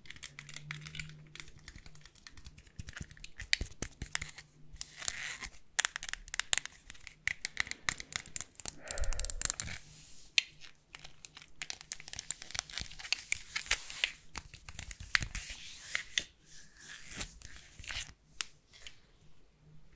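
Irregular crinkling and crackling rustles, many small sharp crackles in clusters, typical of an ASMR handling trigger.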